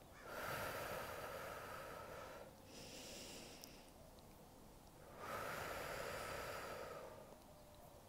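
A woman taking slow, deep belly breaths. There are two long breaths of about two seconds each, with a shorter, softer one between them.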